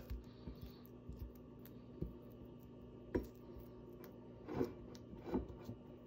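Metal spoon stirring sticky melted candy corn on a ceramic plate: a few light clicks and scrapes of the spoon against the plate, about four of them spread over the last few seconds.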